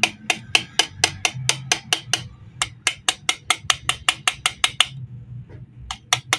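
Small hammer tapping quickly on the top of a Stoeger 9mm pistol's steel magazine, about four taps a second, pausing briefly near the end before starting again. The taps bend the magazine's spread feed lips back closed, the fault that was making the pistol lock up on the last round.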